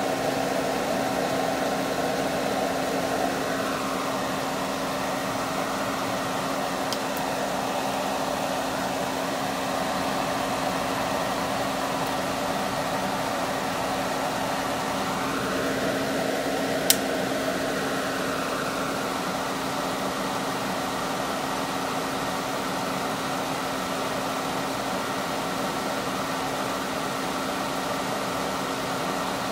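Hot-air rework station blowing a steady stream of hot air with a constant motor hum, reflowing the solder under a QFN chip on a breakout board. A single sharp click comes about 17 seconds in.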